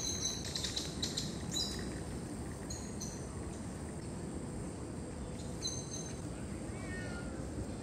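Outdoor ambience: a steady background hiss with small birds giving short, high chirps several times and a faint falling call near the end.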